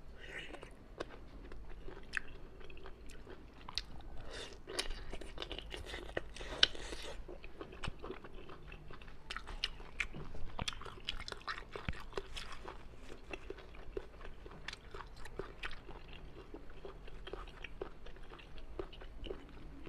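Close-miked biting and chewing of cooked conch meat: a steady run of sharp mouth clicks with some crunchy bites, busiest a few seconds in.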